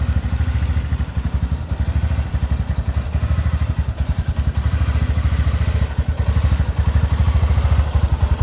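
Stock 2021 Honda FourTrax Rincon 680 ATV's single-cylinder engine idling steadily through its stock exhaust, a rapid even pulsing that gets a little louder in the last couple of seconds.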